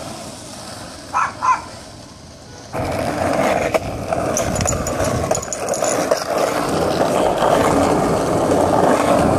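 Skateboard wheels rolling over rough street asphalt, heard close to the board as a steady grinding rumble with a few clicks. It starts abruptly about three seconds in. Before that is a quieter stretch with two brief chirps about a second in.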